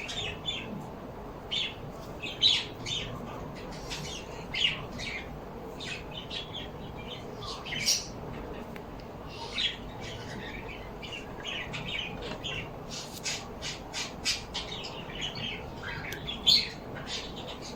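Several birds chirping and squawking in a constant run of short, overlapping calls, with a few louder squawks standing out.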